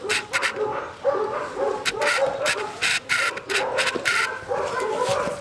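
A pet animal whining in many short, high, repeated calls, mixed with sharp clicks and rustles of handling.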